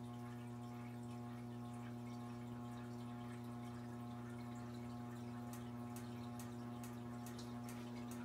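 Litex ceiling fan running, its motor giving a low, steady hum, with a few faint ticks in the last few seconds.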